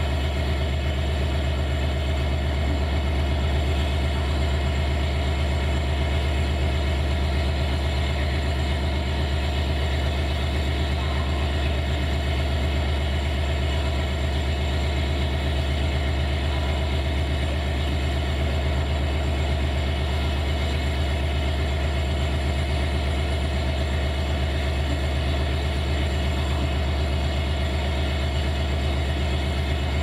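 Diesel locomotive engine idling steadily: a deep, even hum that holds the same pitch and level throughout.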